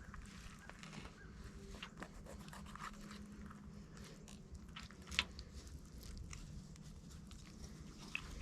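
Faint crunching and tearing of a squirrel being skinned and gutted by hand with a pocket knife, with scattered small clicks and one sharper click about five seconds in.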